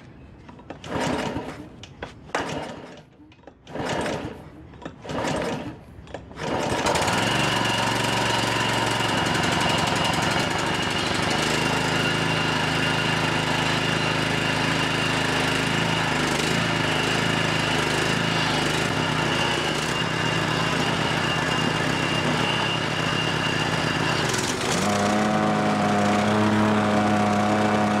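John Deere JX75 push mower's small engine being pull-started: several short recoil-starter pulls that don't catch, then it fires about seven seconds in and runs steadily, its note stepping up about 24 seconds in. A hard start that the owner puts down to a choke he doubts is fully closing.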